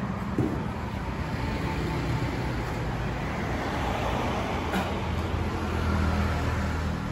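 Steady road traffic noise, with a vehicle engine's low hum swelling about five to seven seconds in, and a couple of light knocks.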